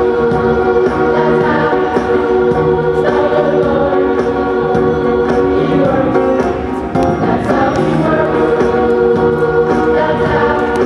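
Backing music with choir-like singing over a steady beat, accompanying a dance routine.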